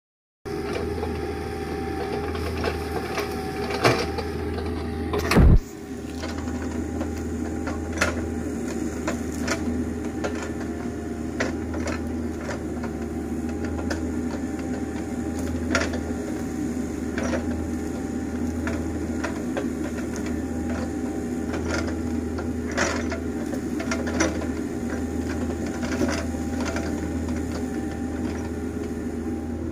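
Mini excavator's diesel engine running steadily under hydraulic load as it digs, with scattered sharp knocks from the working arm and bucket. A loud thump about five seconds in.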